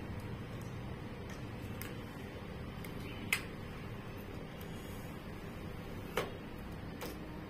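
A gaming mouse's retail box being picked open by hand: a few sharp clicks and snaps of the packaging, the loudest about three seconds in and another about six seconds in, over a steady low hum.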